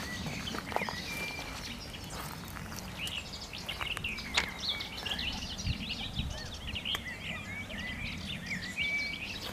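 Songbirds chirping and singing in a busy chorus of short, high calls that grows thicker after the first few seconds, with a few footsteps crunching on gravel track ballast.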